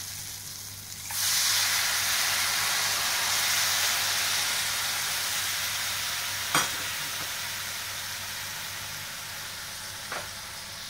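Tamarind water poured into a hot pan of tempered vegetables, bursting into loud sizzling about a second in that slowly dies down as the liquid settles. A short knock comes past the middle and another near the end.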